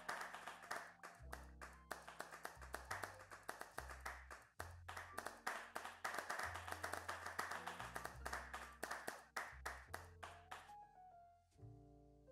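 Applause of many hand claps over background music with a stepped bass line. The clapping dies away near the end, leaving only the music.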